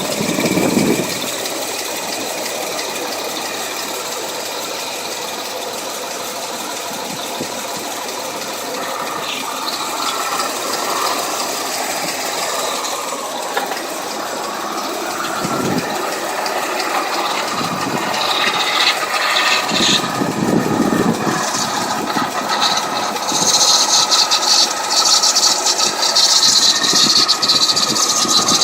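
Toyota FJ40 Land Cruiser running with a rattle: the weird noise under investigation, its cause not identified. It gets louder in the second half, with a strong hiss in the last few seconds.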